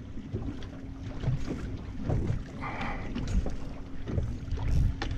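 Boat motor running at idle in gear with a steady low hum, under wind and water rumble with irregular low knocks.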